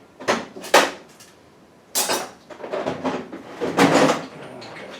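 Sharp metallic clacks and rattling of hand tools and engine parts being handled while working stuck valve lifters out of the engine block. Three separate clacks come in the first two seconds, then a longer clatter of rattling knocks.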